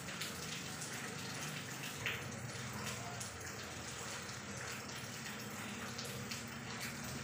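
Steady rain falling: an even hiss with scattered sharp drips and drops striking close by.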